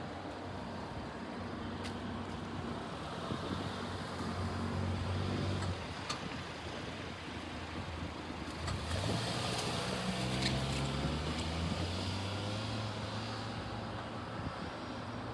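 A vehicle engine running, its low hum shifting up in pitch and getting louder about nine seconds in, over steady traffic noise.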